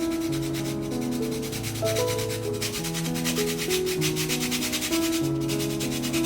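Fast, regular scraping strokes of hand food preparation in the kitchen, which stop about five seconds in, with background music playing throughout.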